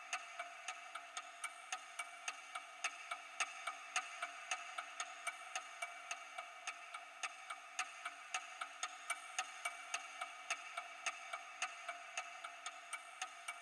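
Steady, rapid ticking of a clock, about three ticks a second, over a faint constant hum.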